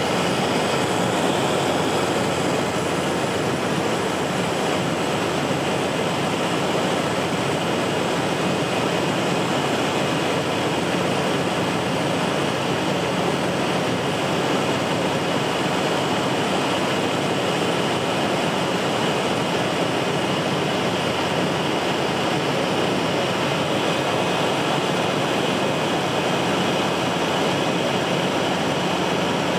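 Harbour Air floatplane's engine and propeller running steadily in cruise, heard from inside the cabin as a loud, even drone.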